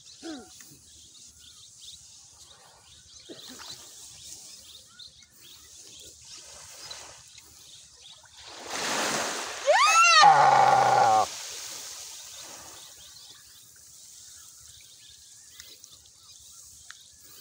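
A young Timor deer, being eaten alive by a Komodo dragon, gives one loud distress bleat about ten seconds in: the cry glides sharply up in pitch, then holds for about a second before cutting off. A short rush of noise comes just before it; otherwise only faint sounds.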